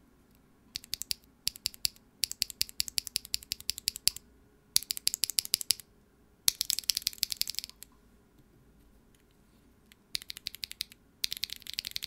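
Mechanical keyboard switches clacking in about seven quick bursts of rapid presses, a bright, high-pitched clack rather than a deep thock.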